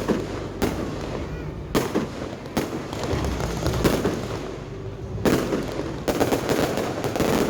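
Aerial fireworks bursting, with separate bangs about once a second and then a quick run of crackling bangs near the end.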